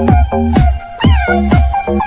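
Electronic dance music, house style, with a kick drum about twice a second, a steady bass and a high wavering melody line above it.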